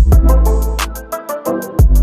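Background music with a steady beat: heavy bass, drums and hi-hat.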